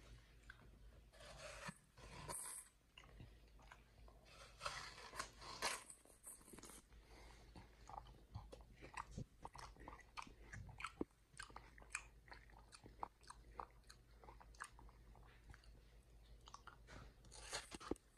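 Chimpanzee biting and chewing watermelon flesh, faint and close-up: a few longer crunchy bursts in the first seven seconds, then a run of short mouth clicks and smacks.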